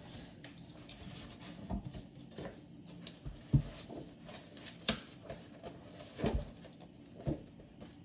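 Rustling and scattered knocks as books and papers are handled and rummaged through at a desk, the loudest knock about three and a half seconds in.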